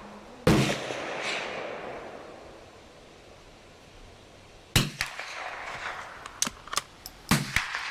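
Three gunshots, about four seconds and then two and a half seconds apart, each ringing out with echo. Lighter clicks fall between the second and third shots.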